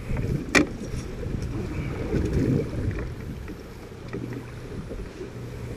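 Low, steady rumble of a small fishing boat on open water, with a sharp knock about half a second in.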